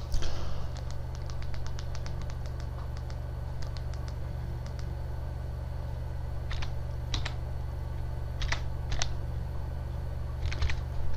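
Computer keyboard keys clicking one at a time as a four-digit verification code is typed, after a quicker run of light clicks in the first few seconds. A low steady hum runs underneath.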